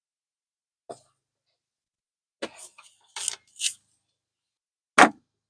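Plastic plant pots and trays being handled: a faint click about a second in, a short run of clatters in the middle, and a sharper knock near the end.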